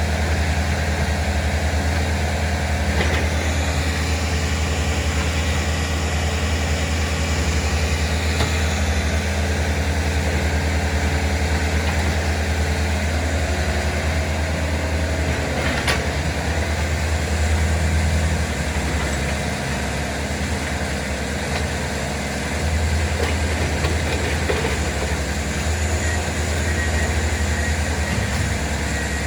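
Engines of railroad track maintenance machines running steadily, with a high whine that rises and falls a few seconds in and a single sharp clank about halfway through.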